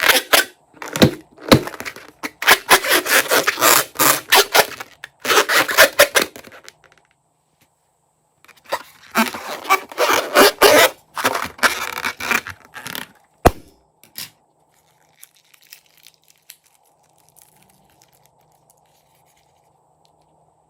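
Crunchy slime being squeezed and worked by hand, crackling and popping densely in two long bouts, followed by one sharp snap and then only faint scattered clicks.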